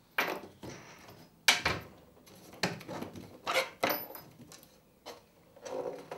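Two small wooden model-railway baseboards being handled and pulled apart at their bolted join: a series of about six sharp wooden knocks and clunks, the loudest about a second and a half in.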